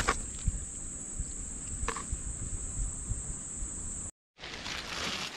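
Steady high-pitched chirring of insects, with a few faint clicks. It cuts off abruptly about four seconds in, and after a moment of silence a rougher rustling noise follows.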